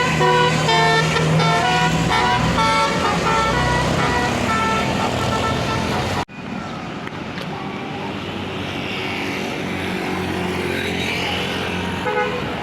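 Bus telolet Basuri musical horn playing a quick tune of shifting notes over the bus's engine for the first four or five seconds. After an abrupt cut about six seconds in, a large vehicle's engine and road noise rise and fall as it passes, with a brief burst of horn notes near the end.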